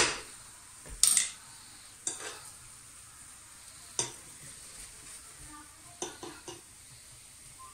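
Wooden spoon stirring and scraping an egg-and-asparagus tortilla mixture in a small frying pan over faint sizzling. It gives short scrapes and knocks, about one a second at first, then a quick run of three about six seconds in.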